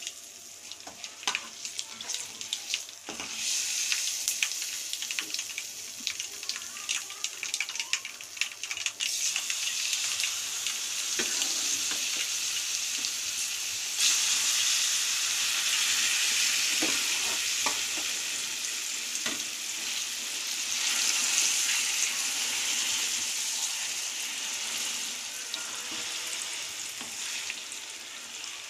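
Spice tempering of cumin, lentils, garlic and dried red chillies crackling and sizzling in hot oil in a kadai as a spoon stirs it. About halfway through the sizzle jumps up sharply as wet ground gongura chutney is spooned into the oil, then holds as a steady loud hiss while it is stirred.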